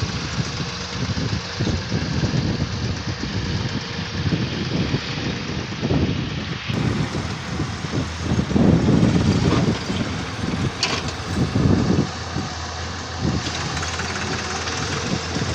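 Samsung excavator's diesel engine running as the machine works, with a steady low rumble that swells into loud, rough surges about halfway through and again a few seconds later, with a few sharp knocks along the way.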